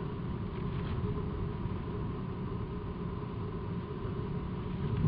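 Hurricane-force wind buffeting the microphone over heavy surf breaking on the beach: a steady, rumbling noise with no distinct events.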